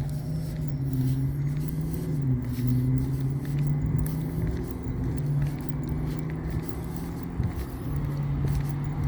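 Road traffic in slow, congested flow: vehicle engines running with a steady low hum that wavers slightly in pitch.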